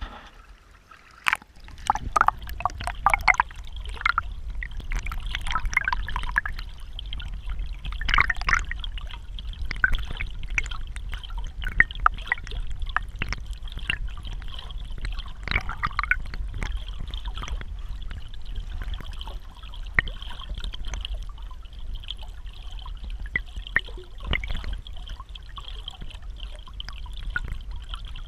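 Hatchery outflow stream water heard from underwater: a steady low rumble of the current with gurgling bursts and scattered clicks and ticks.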